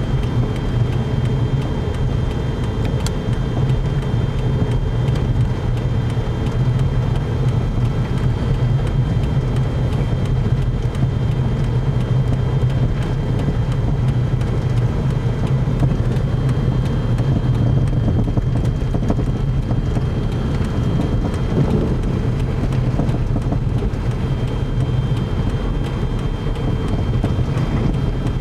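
Steady low rumble of a car driving, engine and tyre noise heard from inside the cabin, with a faint steady high whine over it.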